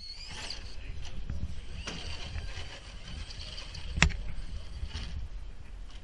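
Electric drivetrain of an Axial radio-controlled rock crawler running as it climbs a wooden slatted ramp, with tyres rolling over the slats. A sharp knock comes about four seconds in.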